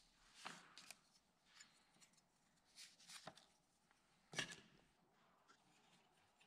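Faint, scattered clicks and taps of small metal flashlight parts being handled and set down on a workbench, the loudest about four seconds in.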